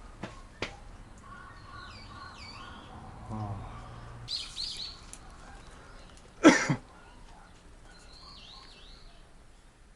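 Small birds chirping now and then in short downward-gliding calls, with two sharp clicks near the start and one loud harsh call about six and a half seconds in.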